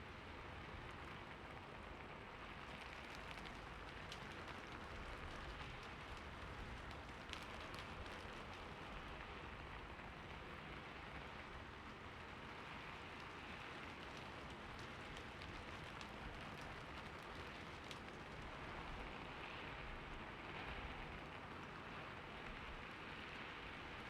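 Steady rain falling on a roof, a soft even patter with scattered faint drop ticks.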